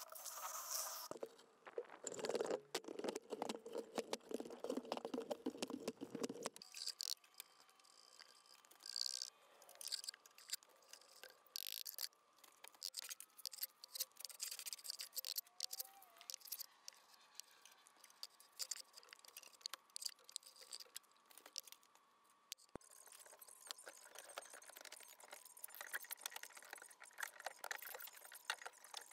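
Mortar work: wet mortar scraped and stirred in a plastic bucket for the first several seconds, then scattered light taps and scrapes of a trowel and bricks being set in mortar, busier near the end.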